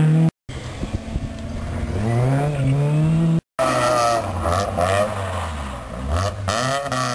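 Rally cars driven hard through a tight corner, engine note climbing steeply as a car accelerates out, then another car's engine revving up and down. Two brief dead gaps split the passes, about half a second in and midway.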